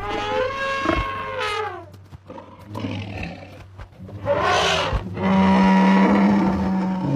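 Animal calls of a cave-lion and mammoth hunt: a long high wavering call that falls away about two seconds in, then a harsh snarl about four seconds in and a long steady lower call to the end.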